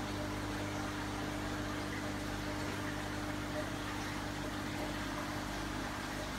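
Aquarium pump running with a steady hum of several fixed low tones, under the fizzing hiss of water and air bubbles rising through the tank.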